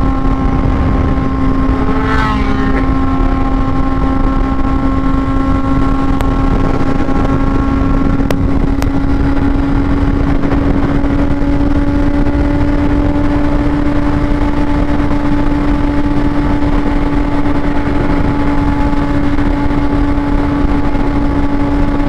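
Sportbike engine running at a steady, constant rpm while cruising, its note holding one pitch throughout, with wind rushing over the helmet camera's microphone.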